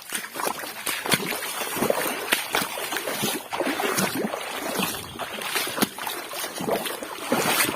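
Footsteps wading through floodwater, splashing and sloshing with each step in an irregular run.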